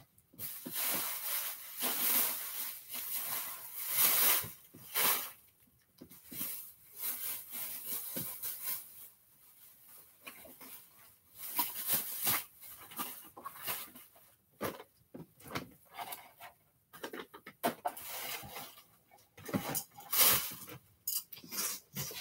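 Rummaging and rustling through papers and bags, in irregular bursts of crinkling and handling noise with short pauses between.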